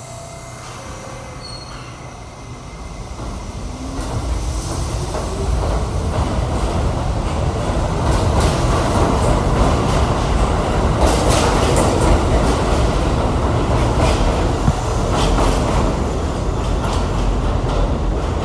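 An R68 subway train pulls out of the station. Its motors rise in pitch as it picks up speed, then the cars rumble past with clacking wheels on the rails.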